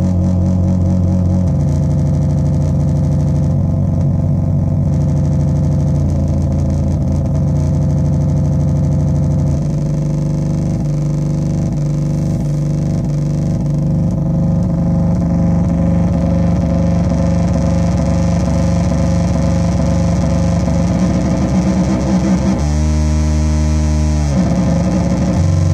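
Metsään Dirty Drone Anarchy synthesizer, its three interacting triangle-wave oscillators making a loud, distorted low drone that jumps to new pitches every few seconds as it is played. Around the middle it wobbles and pulses, and near the end it briefly turns brighter and buzzier before dropping back to the low drone.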